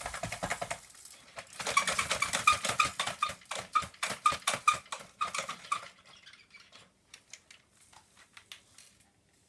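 Loose grains of pudding rice rattling and clicking inside the metal floor head of a vintage Hoover Hooverette as it is handled, a fast run of small clicks with a faint metallic ring that thins to scattered clicks after about six seconds. Rice has got inside the base plate of the head.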